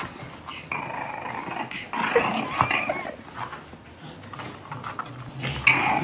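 A puppy growling in short bouts while it plays with a person's teasing hand.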